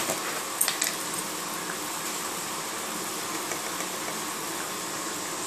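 Mixed vegetables frying in oil in a steel kadai: a steady sizzling hiss, with a few light metal clinks on the pan in the first second.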